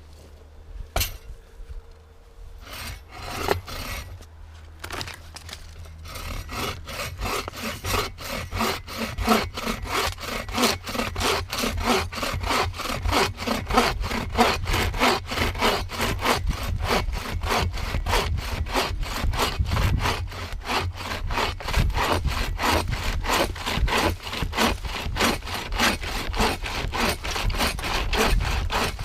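Hand saw cutting through wood with fast, even back-and-forth strokes that start about six seconds in, after a few separate knocks.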